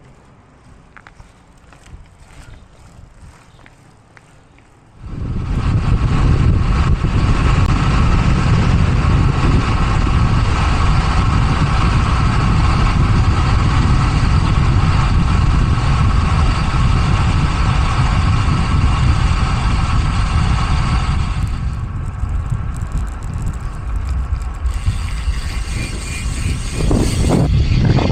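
Wind roaring on the microphone of a bicycle riding at speed, with steady tyre hum from the road. It cuts in suddenly about five seconds in, after a quieter stretch.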